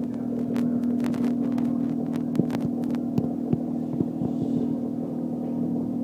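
Steady low hum of a reef aquarium's pump, with a few light clicks scattered through the first half.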